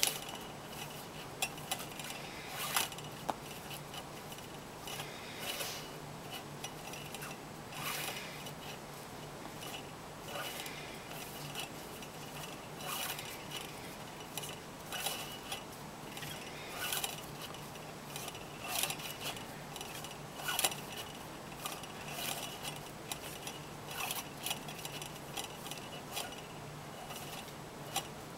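Nylon paracord being pulled and tightened through cobra-stitch knots by hand: irregular short rubbing and scraping sounds with occasional light clicks, over a steady low hum.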